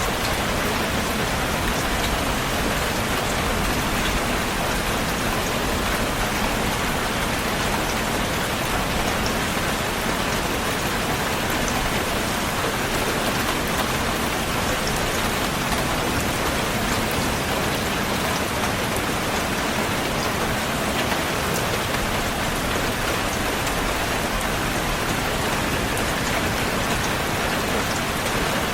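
Heavy rain falling steadily, a dense even hiss with scattered drop ticks throughout.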